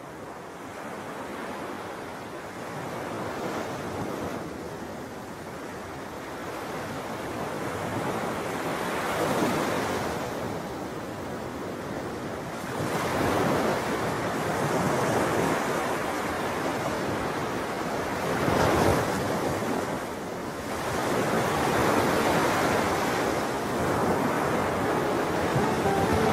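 Ocean surf: waves breaking and washing up the beach, the rush of water swelling and easing several times.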